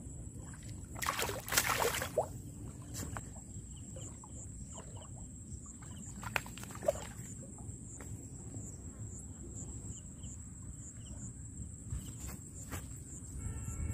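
A hooked catfish splashing and thrashing at the water's edge as it is hauled out by hand line: one loud splash lasting about a second near the start, then a couple of faint knocks, over a steady high-pitched hum and low rumble.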